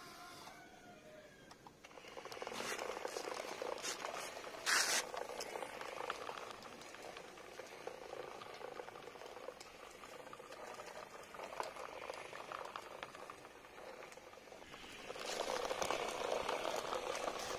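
Homemade RC toy tractor driving over rough concrete: its small electric gear motor runs with the wheels rattling and grinding on the gritty surface. There is a sharp knock about five seconds in, and the sound grows louder again near the end.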